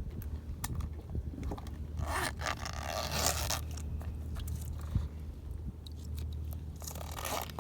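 Two stretches of scraping, one about a second and a half long and a shorter one near the end, over a low steady hum.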